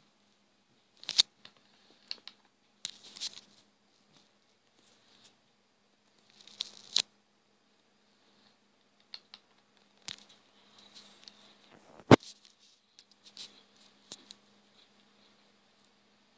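Irregular taps and short scratchy rubs of a finger or stylus on a phone touchscreen, heard through the phone's own microphone, with a sharp knock about twelve seconds in as the loudest.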